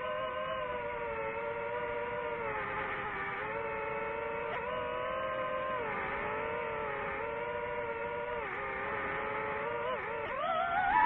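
FPV drone's electric motors and propellers whining steadily, the pitch dipping and recovering several times with throttle changes, then rising sharply near the end.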